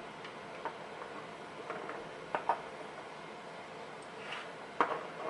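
A few light clicks and taps of small lock pins and parts being handled on a work surface, the sharpest near the end.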